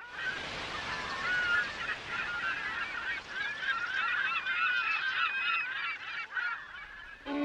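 A large flock of gulls calling, many short overlapping cries at once.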